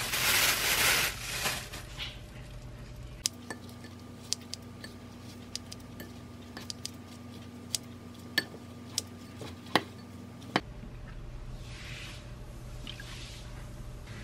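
A plastic bag rustling as thawed thin-sliced pork is taken out, then kitchen scissors snipping through the meat in a ceramic bowl, about ten sharp snips a second or so apart.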